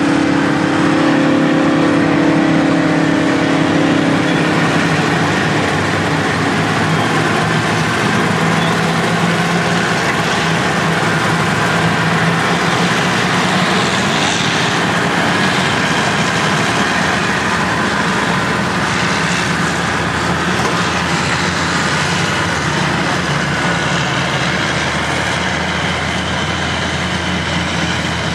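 Diesel engines of several classic earthmoving machines, motor scrapers and crawler bulldozers, running together under work as one steady, heavy engine noise. A strong engine note in the first few seconds fades out about five seconds in.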